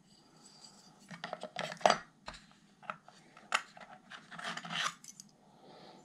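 Old metal buckles clinking and scraping against a plastic compartment organizer tray as a hand picks one out: a run of irregular clicks and short rattles, the loudest a little before two seconds in.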